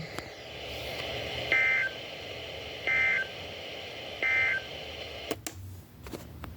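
NOAA Weather Radio end-of-message signal: three short, identical bursts of digital SAME data tones, about 1.3 s apart, played through a Midland WR-120 weather radio's speaker over steady static hiss. Near the end come a few sharp clicks and the hiss drops away.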